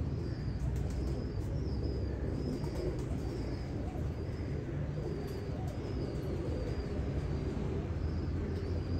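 Pigeons cooing, with short high chirps repeating about twice a second, over a steady low hum.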